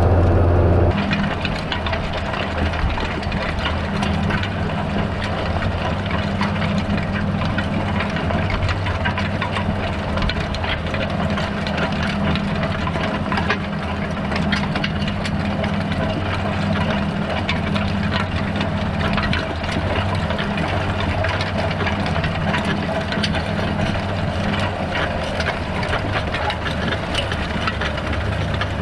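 John Deere 6930's six-cylinder diesel engine running steadily under load while pulling a Unia Mars 4 m cultivator, with constant rattling and clicking of the cultivator's tines and crumbler rollers working through the soil. For the first second the engine is a louder low drone heard from inside the cab.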